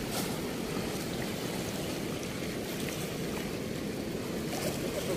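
Fast, turbulent river water rushing past in a steady, unbroken wash.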